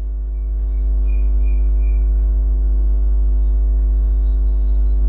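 Steady, loud low hum under a sustained chord of unchanging tones, with a few faint, high, evenly spaced chirps during the first two seconds.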